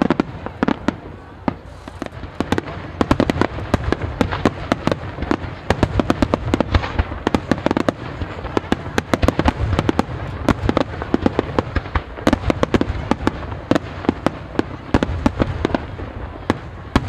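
Rapid barrage of aerial firework shells bursting, several sharp bangs a second overlapping over a steady low rumble, growing denser about two seconds in.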